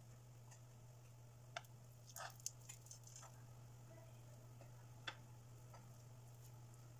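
Faint light clicks of a metal spoon against a non-stick pan and a plate as sticky rice is scooped onto a spring roll wrapper: a few clustered about two to three seconds in and one more about five seconds in, over a steady low hum.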